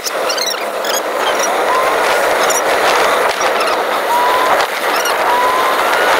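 Steady road and wind noise inside a moving Hyundai Tucson's cabin, with short high chirps every second or so.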